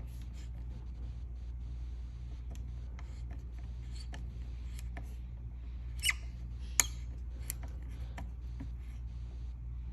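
A small screw being tightened by hand with a screwdriver: faint scattered clicks and scrapes, with two sharper clicks about six and seven seconds in. A steady low hum runs underneath.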